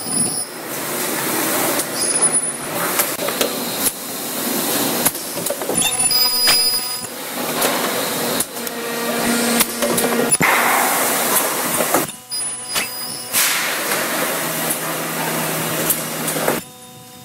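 Industrial machinery running: a steady mechanical whirr with knocks and clanks, changing abruptly several times as different machines follow one another.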